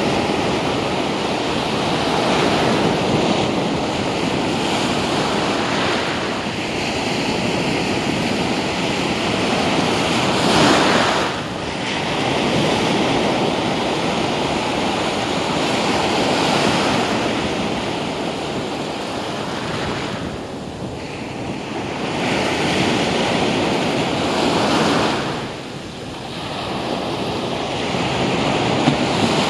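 Small beach surf breaking and washing up the sand in a steady rush that swells and fades with each wave, loudest about ten seconds in.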